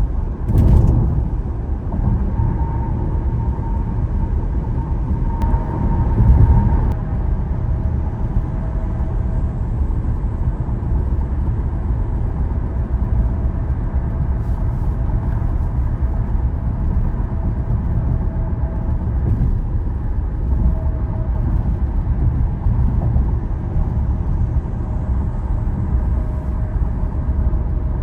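Car driving at highway speed: a steady low rumble of road and tyre noise, with brief louder swells about half a second in and again around six seconds.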